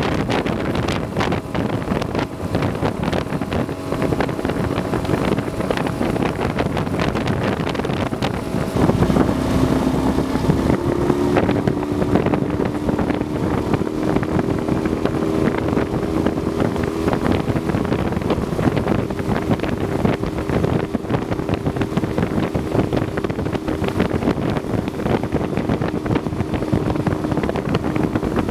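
Small boat's outboard motor running steadily, with wind buffeting the microphone and water rushing past the hull. The motor's tone shifts up around ten seconds in.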